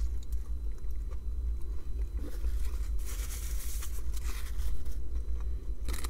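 A man biting into and chewing a breaded-chicken burger: soft mouth and chewing noises over a steady low hum, with a brief rustle about three seconds in.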